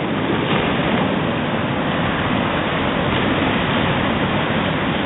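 Sea surf breaking and washing up onto a sandy beach: a steady rush of waves.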